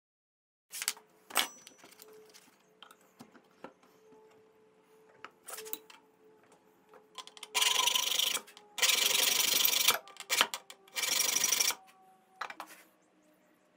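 A hand file rasping on the steel locking plate of a pipe clamp in three strokes of about a second each, after a few light clicks of the metal parts being handled. The file is cutting teeth into the plate so it will grip the pipe instead of sliding.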